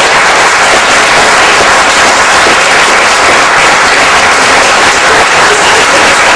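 Audience applauding: many hands clapping in a dense, loud, steady patter.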